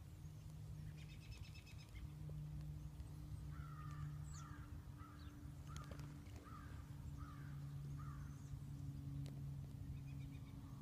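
A bird calling outdoors: a series of about seven harsh calls, one every three-quarters of a second or so, after a short rapid run of higher notes about a second in. A steady low hum runs underneath.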